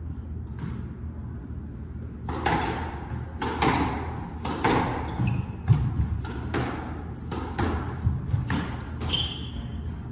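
Squash rally: the ball smacking off racquets and the walls in a quick string of sharp hits, starting about two seconds in and coming roughly every half second.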